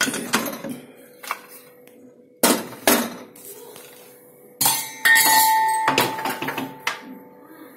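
Aluminium pressure cooker lid being twisted open and lifted off: a series of sharp metal knocks and clatter, then a loud clang about five seconds in that rings on for about a second.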